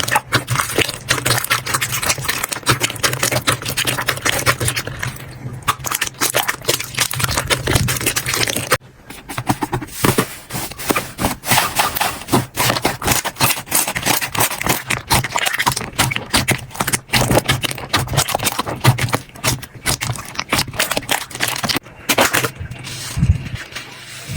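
Slime being squished and pressed by hand: dense, sticky clicks, pops and crackles, with a brief lull about nine seconds in.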